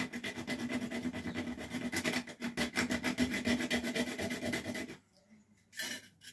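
A stick of resinous pine fatwood rasped rapidly back and forth on a cheap metal nutmeg grater, shaving off fine tinder curls. The rasping stops about five seconds in, and a couple of brief scrapes follow near the end.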